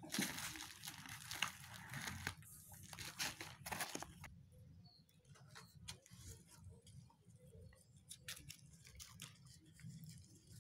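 Crinkling and rustling of a plastic-coated carton sheet as newborn puppies and the mother dog move on it. It is loudest for the first four seconds, then turns into fainter scattered clicks and rustles.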